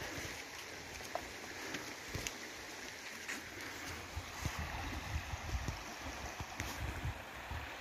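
Shallow river flowing over stones: a steady rushing hiss of water, with intermittent low rumbles and a few faint clicks.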